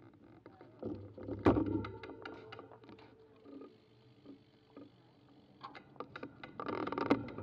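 Scattered clicks and knocks from a road bike being handled and moved, with one loud knock about one and a half seconds in and another cluster of clicks near the end.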